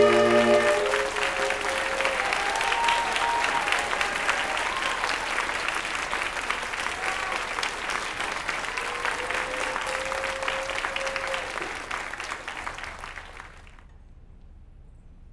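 A student saxophone ensemble's held final chord ends about a second in, and the audience applauds. The applause cuts off suddenly about two seconds before the end.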